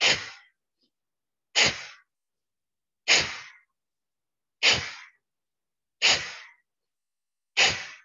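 Forceful breaths through one nostril in a yoga breathing exercise, about one every one and a half seconds: six sharp, sneeze-like rushes of air, each starting abruptly and fading within half a second.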